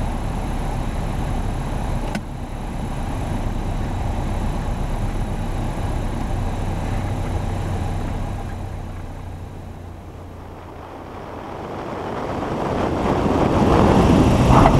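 Piper Warrior light aircraft landing and rolling out, heard from a camera under the wing: steady wind and engine noise with the power back, easing off about ten seconds in, then swelling over the last few seconds as full power comes in for a touch-and-go.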